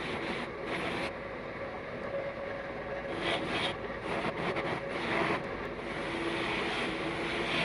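A steady mechanical running noise with rubbing against metal, swelling louder a few times, typical of a power tool working the rusted metal.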